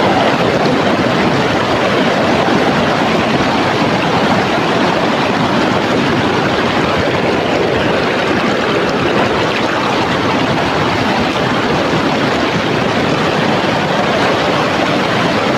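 Shallow rocky river water rushing steadily over and around stones close by.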